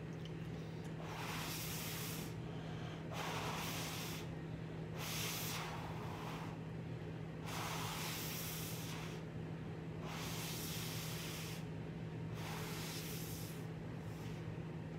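A person breathing hard through the nose while chewing noodles, a hissing breath about every two seconds, over a steady low hum.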